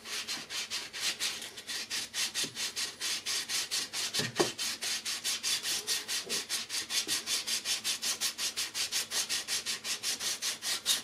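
A Minarelli scooter engine's cylinder head is rubbed by hand in quick, even strokes, about five a second, over a flat abrasive surface. It is a rhythmic scraping as the head's sealing face is lapped and dried black spray paint is ground off to show up low spots.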